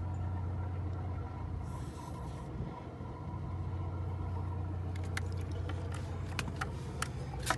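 Steady low machine hum, with a run of sharp clicks and knocks in the last couple of seconds as a freshly caught pompano goes into a plastic bucket with the metal jig still in its mouth.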